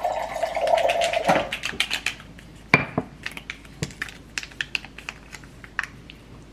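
Refrigerator door water dispenser running water into a glass for about a second and a half. After that comes a sharp knock, like the glass being set down, and then a run of small clicks and taps as supplements are handled.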